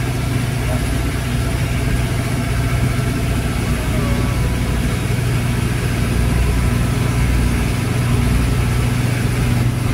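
Engine of a motorized outrigger boat (bangka) running steadily under way, a low even drone, with a hiss of wind and spray over it.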